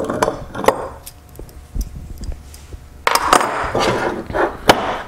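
Light metal clicks and clinks as steel core rods are pulled from a clamped aluminium soft-plastic injection mold. About three seconds in, a scraping rustle of nearly two seconds as the metal mold block is handled on the wooden workbench, ending in a sharp click.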